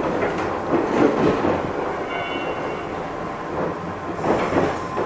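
JR 185 series electric train running, heard from the driving cab: steady running noise with wheels clattering over rail joints and points in surges, and a faint brief high squeal a couple of seconds in.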